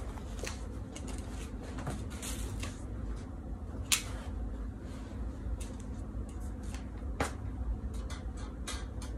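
Clothes hangers clicking and sliding on a clothing rack, with fabric rustling. A sharp click about four seconds in is the loudest, and another comes near seven seconds, over a steady low hum.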